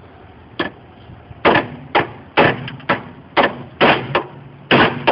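Hammer blows on bent car-body sheet metal, flattening it: about a dozen sharp metallic strikes, roughly two a second, beginning about half a second in.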